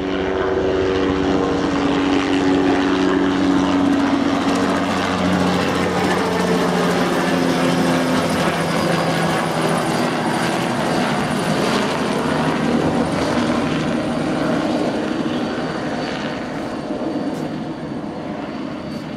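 Bell 206-series light helicopter flying low overhead: its turbine and rotor noise grows loud, its engine tones drop in pitch as it passes, and it then fades somewhat as it moves away.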